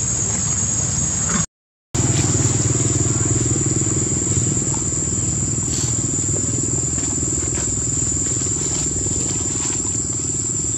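Insects giving a steady high drone over a low, engine-like hum. The sound drops out completely for a split second about one and a half seconds in.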